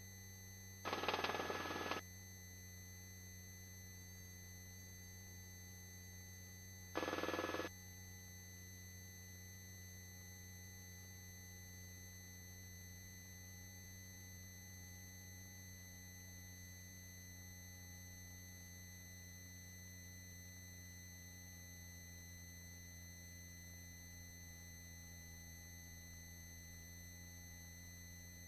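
Helicopter headset intercom feed during the landing approach: a steady electronic hum of fixed tones with the rotor noise filtered out, broken twice by a short burst of noise, once about a second in and again about seven seconds in.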